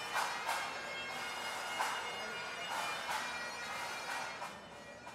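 Bagpipes playing, with steady drone tones under the melody; the sound fades a little after about four seconds.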